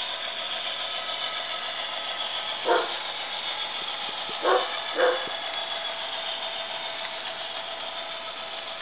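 HO-scale model diesel locomotive's DCC sound decoder playing a steady diesel engine sound through the model's small speaker, while a dog barks three times, about three and four and a half and five seconds in.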